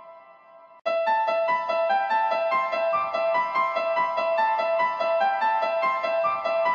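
Electric piano music: a held chord fades out, then a quick, evenly paced melody of repeating notes starts suddenly about a second in.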